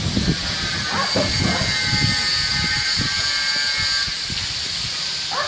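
A walk-behind tractor's small engine, driving the milking system's vacuum pump, cuts out right at the start; a steady hiss with a faint, slowly falling whine carries on as the vacuum pump shuts down.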